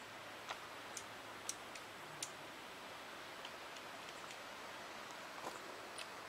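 Quiet outdoor hiss with about ten scattered light clicks and ticks, most of them in the first two and a half seconds.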